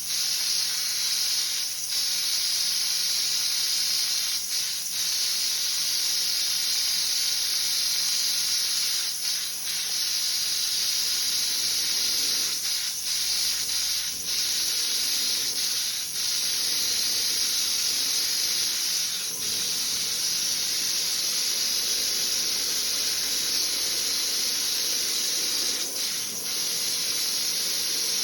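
Air-fed paint spray gun hissing steadily as it sprays single-stage paint onto a wheel, with brief let-offs several times.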